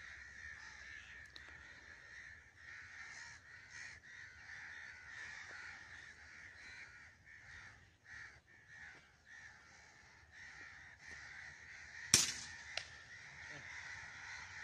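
A flock of crows cawing continuously, and about twelve seconds in a single sharp crack from a Rapid HM1000X PCP air rifle firing, followed by a fainter click about half a second later.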